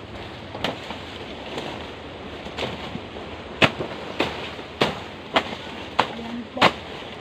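Bolo (machete) chopping through plant stalks at their base: a series of sharp cutting strikes, about one a second at first, then quicker, about every half-second, from about three and a half seconds in.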